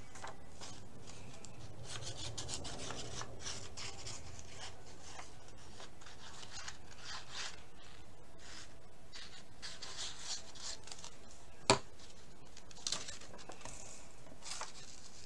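Paper rustling and rubbing as hands handle glued pieces of card stock and press them onto a card, with one sharp tap about three-quarters of the way through.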